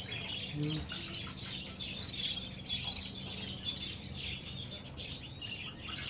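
Many small caged finches chirping and twittering at once, a dense, unbroken chatter of high, quick calls.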